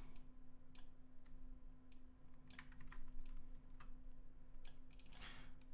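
Quiet, scattered clicks of a computer keyboard and mouse, over a faint steady hum, with a short soft hiss near the end.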